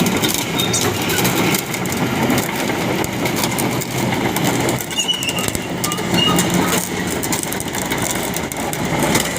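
Kobelco SK200 excavator's diesel engine running steadily, with repeated metallic clanks and knocks and a couple of brief squeaks about five to six seconds in.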